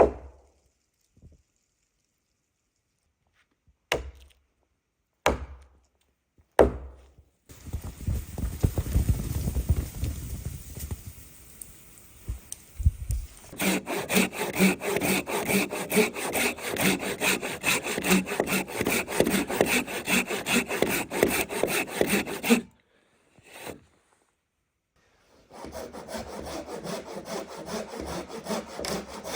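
Hand saw cutting through wood in quick, steady back-and-forth strokes, in two spells with a short pause between. A few sharp knocks and a stretch of rustling come first.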